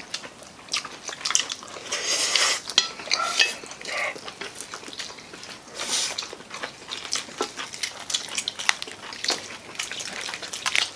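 People eating crispy fried chicken and noodles: bites and chewing with many small clicks of forks and chopsticks against plates, and louder bites about two and six seconds in.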